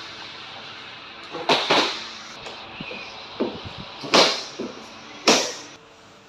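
Refrigerator packaging being worked open: a series of short, sharp rasping noises, each under half a second, with lighter knocks in between.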